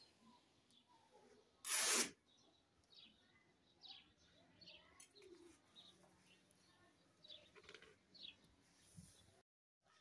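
A loud swish of cloth about two seconds in as a length of printed skirt fabric is shaken out, followed by faint, scattered high chirps.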